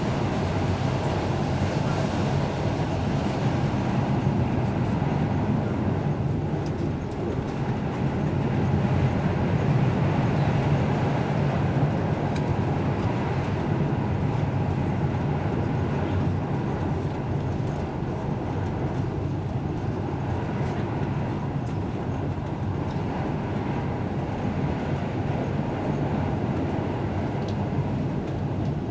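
Steady rumble of a passenger train running at speed, heard from inside the carriage.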